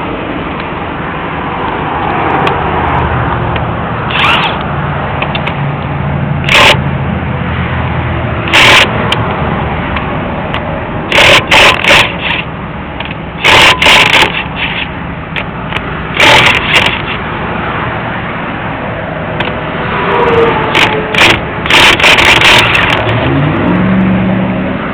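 Highway traffic going by steadily, broken by a series of short, loud mechanical bursts, each under a second long, in clusters from about six seconds in until near the end.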